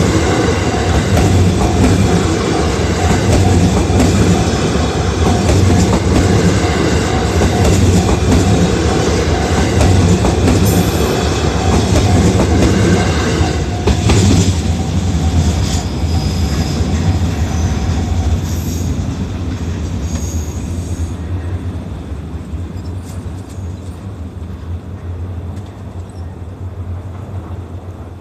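JR West 323 series electric train passing over a level crossing, its wheels rumbling and clattering on the rails, while the crossing's warning bell rings in a steady repeating tone. The train noise drops away about halfway through, the bell stops a few seconds later, and the sound then fades.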